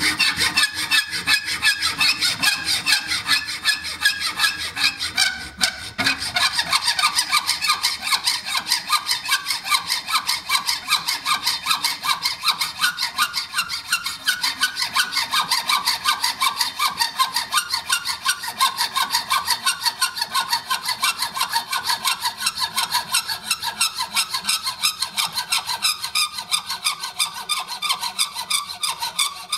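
Hacksaw cutting a slab of G10 fibreglass laminate clamped in a vise, in fast, even back-and-forth strokes that are loud. The strokes break off briefly about six seconds in.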